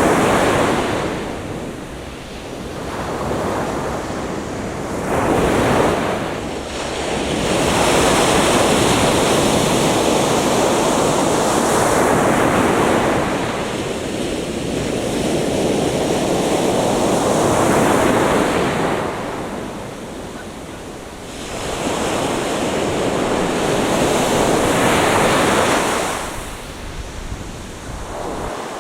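Atlantic Ocean waves breaking and washing up the beach, the rush of surf swelling and easing every few seconds as one wave follows another.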